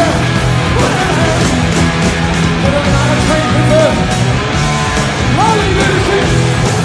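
Loud live southern rock music from a full band playing electric guitars, bass and drums.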